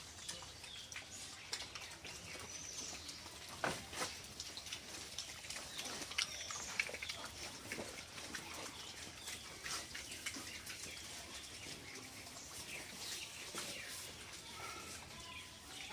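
Pigs eating from feed bowls: irregular wet chomping with short clicks and knocks of snouts against the bowls.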